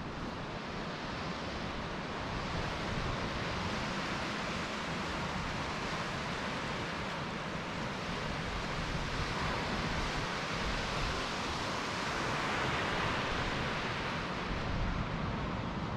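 Steady wash of ocean surf with wind buffeting the microphone, growing a little louder near the end.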